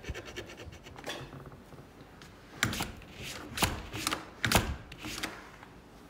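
Wooden patio door pushed shut and knocking against its frame: several knocks, the three loudest about a second apart, as the latch bolt meets the strike plate without catching. The door still won't latch after the strike opening was filed wider.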